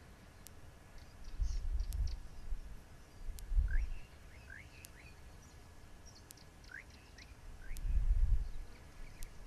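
Small birds chirping with short rising calls, over three bursts of low rumble: about a second in, near four seconds and around eight seconds. A faint tick comes about every second and a half.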